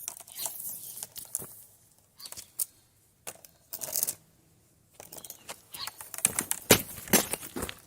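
Irregular handling noises: short rustles, scrapes and light clicks, several of them sharp, as pipe, fittings and tape are worked by hand.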